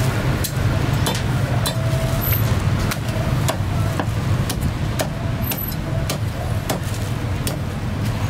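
Meat cleaver chopping roast duck on a thick round wooden chopping block: a series of sharp chops, about one or two a second, over a steady rumble of street traffic.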